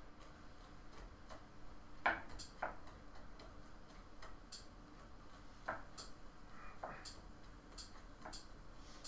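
Wooden spoon knocking and scraping against a coated frying pan while stirring diced onions: irregular light clicks, with a couple of louder knocks about two seconds in and another a little past halfway.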